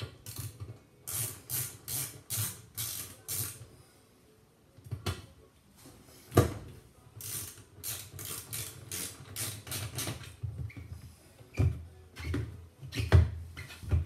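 Screwdriver working screws at the door opening of a washing machine, in runs of sharp, ratchet-like clicks about two to three a second. There is a pause of about a second near the middle, then more irregular clicks and knocks.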